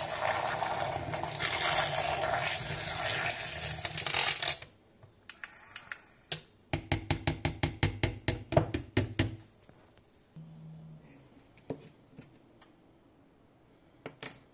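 Battery-powered handheld mini mixer (milk frother) running, its small wire whisk churning beaten eggs in a plastic jug, then switched off abruptly about a third of the way in. A few seconds later comes a quick run of light taps, about five or six a second, for a couple of seconds.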